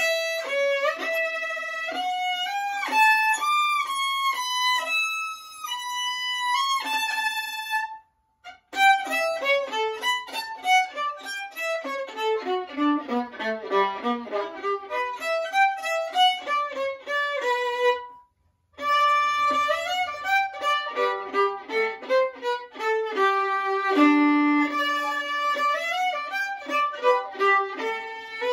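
Solo violin played with the bow, unaccompanied, in quick runs of notes that go down to the instrument's low G string. The playing breaks off into silence twice, briefly, about 8 and 18 seconds in.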